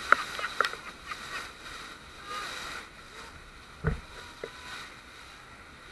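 Sea water splashing and rushing along an inflatable banana boat under tow, with a few sharp knocks in the first second and a heavy thump about four seconds in.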